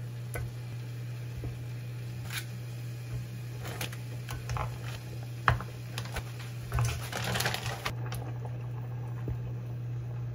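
Sliced rice cakes and frozen dumplings dropped by hand into a pan of broth, making scattered soft plops and clicks, with a plastic bag crinkling for about a second around two-thirds of the way in. A steady low hum lies under it all.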